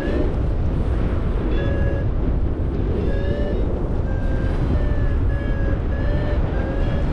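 Paragliding variometer beeping in short repeated electronic tones, about one to two a second and quickening in the middle, its climb signal that the glider is in rising air. Heavy wind buffeting the microphone runs under it.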